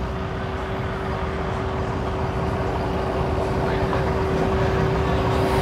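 Outboard boat motors running slowly at idle, a low rumble with a steady hum held throughout.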